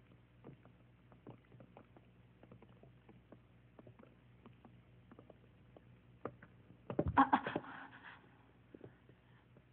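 Faint scattered taps over a low steady hum, then a brief loud clatter of knocks about seven seconds in.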